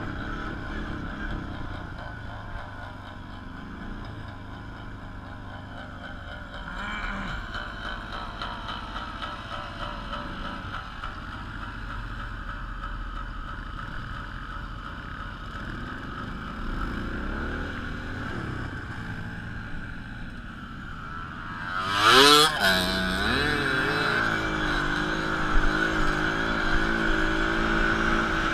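Small off-road vehicle engine running along a dirt trail, its pitch rising and falling with the throttle. About three-quarters of the way through it revs up sharply and loudly, then keeps running at higher revs.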